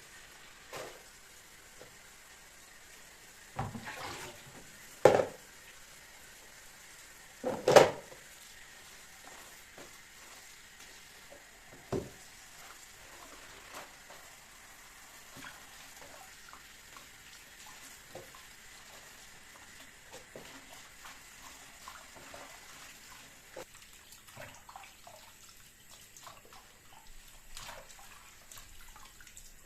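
Water running from a tap into a kitchen sink, with a few sharp knocks of dishes or utensils in the first eight seconds and lighter clicks and handling sounds after them.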